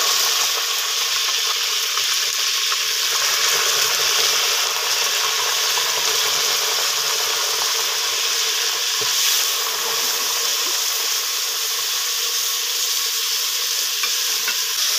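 Meat pieces sizzling in hot ghee in a metal cooking pot: a steady frying hiss.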